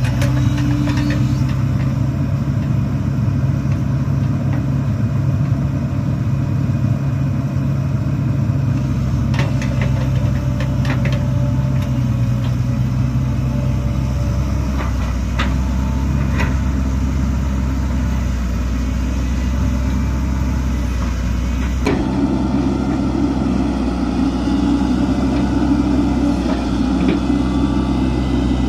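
Hitachi excavator's diesel engine running steadily, with a few short clicks or knocks along the way. The sound changes abruptly about three-quarters of the way through.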